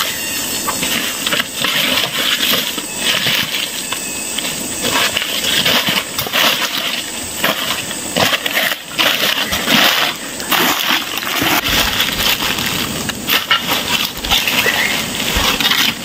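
Burning brush and felled branches crackling and snapping, with a steady hiss of the fire underneath.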